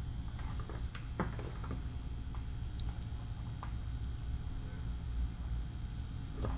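Faint scratching and small clicks of plastic guitar picks being worked under the adhered glass of a Samsung Galaxy Note 3 to pry it loose, over a steady low hum.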